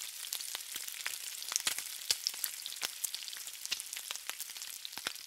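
Bacon frying on a flat-top griddle: a steady sizzle, dense with sharp crackling pops of spitting fat.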